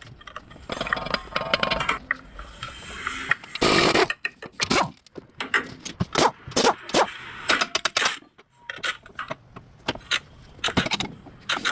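Metal tools and car parts clanking, clicking and scraping in quick irregular knocks, with a dense half-second burst about three and a half seconds in, as work goes on at a front drive shaft.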